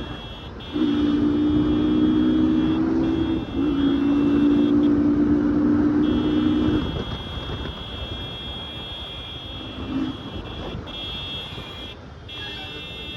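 Two long blasts of a loud two-tone booster horn on a motorcycle, the first about 2.5 s and the second about 3 s, over steady road and traffic noise. A high steady beeping tone cuts in and out throughout.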